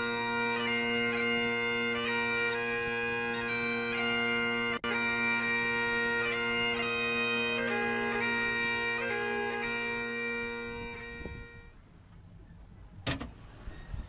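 Bagpipe music: steady drones under a changing chanter melody, which fades out about three-quarters of the way through. A single sharp knock comes near the end.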